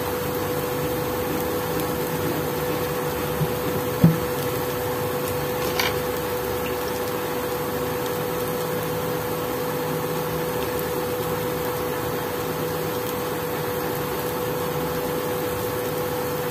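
Induction cooktop running under a pan of garlic in oil, a steady hum and whir with one constant tone held throughout. A light knock about four seconds in and a fainter click about two seconds later.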